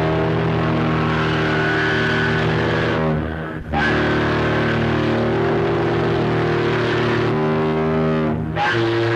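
Ship's horn sounding long, steady blasts of several tones at once, with short breaks about three seconds in and near the end.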